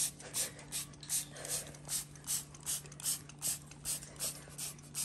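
Handheld plastic trigger spray bottle pumped over and over, each squeeze giving a short hiss of mist, about two and a half squirts a second in a steady rhythm.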